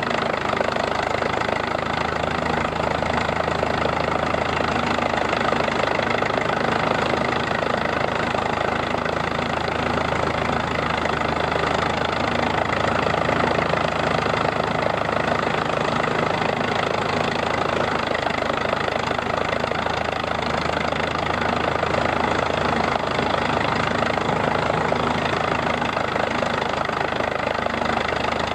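Case cross-motor tractor's four-cylinder engine running steadily under belt load, driving a threshing machine, with the thresher's running noise mixed in. The sound holds even throughout.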